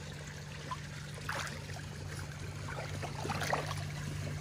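Pool water trickling and lapping as a chimpanzee handles a cup in the water, with small splashes about a second in and again after three seconds, over a steady low hum.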